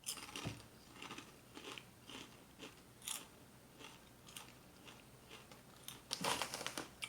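Someone chewing crunchy kettle-cooked potato chips: a string of irregular crisp crunches, louder for a moment about six seconds in.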